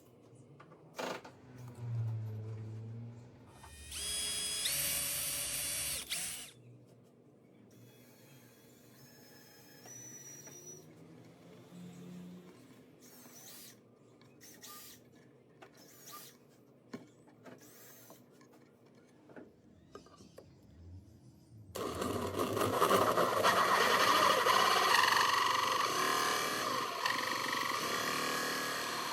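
Power drill running a hole saw. A few seconds in there is a short spin-up with a whine that steps up in pitch, followed by scattered quiet clicks of handling. From about three-quarters of the way through comes a long, loud stretch of drilling and cutting.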